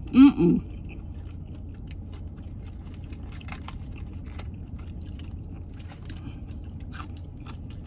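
Close-up chewing and biting on crispy fried chicken wings: faint, scattered crunches and mouth clicks, after a short vocal sound at the very start. A steady low hum runs underneath, from an air conditioner.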